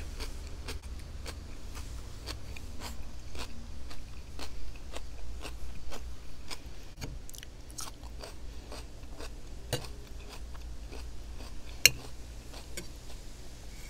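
Close-miked chewing and crunching of food, a run of small irregular clicks and crunches, with one sharper click near the end.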